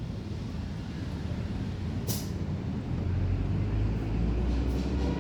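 A vehicle engine idling with a low, steady hum that gets somewhat louder past the middle. A short sharp hiss of air comes about two seconds in.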